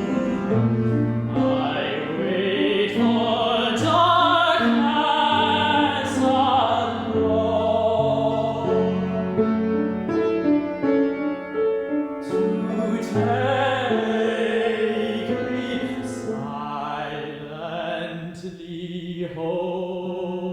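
Operatic singing with wide vibrato over piano accompaniment.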